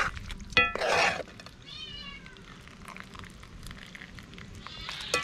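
A cat meowing: a short high cry about half a second in and a longer arched meow about two seconds in. Around it, a metal ladle scrapes and knocks in a metal pot of stewing food.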